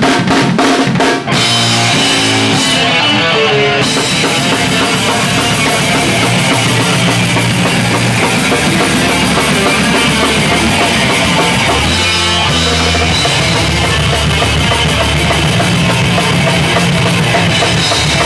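Rock band playing loud: drum kit with cymbals and bass drum under electric guitars and bass guitar. It opens with a quick run of even, sharp drum hits before the full band carries on.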